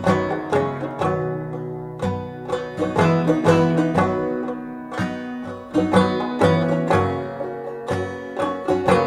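Acoustic instrumental folk music: plucked string notes ringing over low bass notes that change about once a second.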